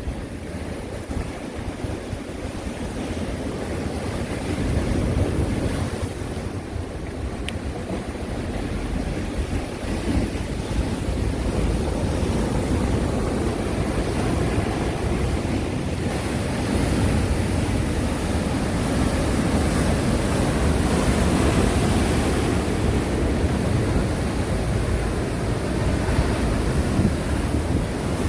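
East Sea waves breaking and washing ashore: a continuous surf rush that swells and ebbs, growing louder through the second half.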